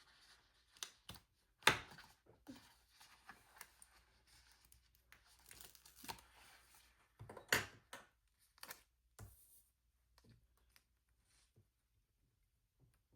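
A paper sticker being peeled from its backing sheet and pressed onto a planner page: soft rustling and crinkling with two sharper crackles, one near the start and one past the middle, thinning out near the end.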